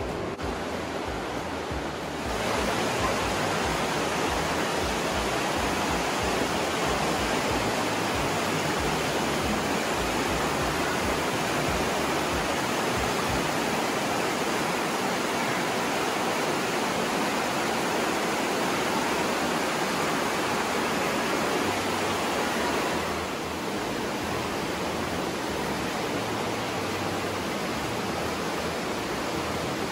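The Aare river rushing through the narrow gorge: a steady, dense rush of fast-flowing water. It gets louder about two seconds in and drops back a little after about twenty-three seconds.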